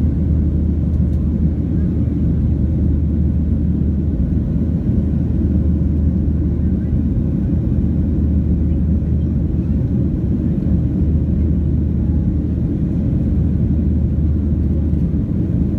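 Steady low rumble of jet engine and airflow noise inside the cabin of a Ryanair Boeing 737-800 in its climb after takeoff, holding even throughout.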